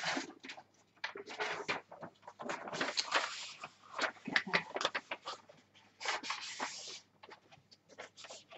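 A sheet of paper rustling as it is picked up and handled, in irregular bursts with short pauses between them.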